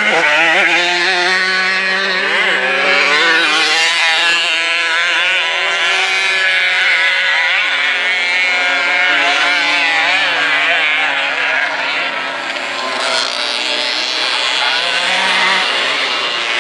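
Motocross motorcycle engines racing, loud, their pitch rising and falling as the riders work the throttle.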